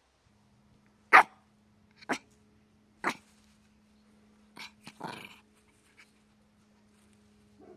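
Small long-haired, flat-faced dog barking: three sharp single barks about a second apart, then a quicker, softer cluster of barks about four and a half seconds in, and one last faint bark near the end.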